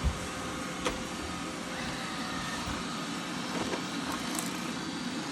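Robotic vacuum running with a steady whir, with two short knocks, one at the start and one about a second in.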